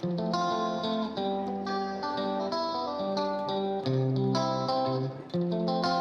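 Background music led by a plucked guitar, playing a melody of quick separate notes.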